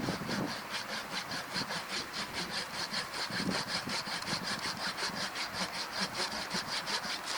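Hand saw cutting wood with quick, even back-and-forth strokes, about four to five a second.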